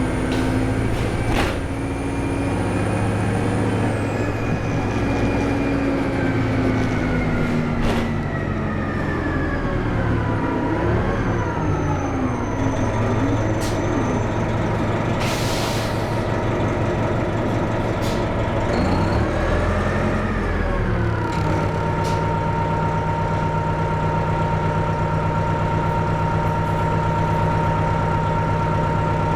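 NABI 436 transit bus's diesel engine and turbocharger whistling, the whine falling in pitch as the bus slows. About halfway through comes a short hiss of air, with a few clicks and rattles. The engine then rises and falls once more before settling into a steady idle.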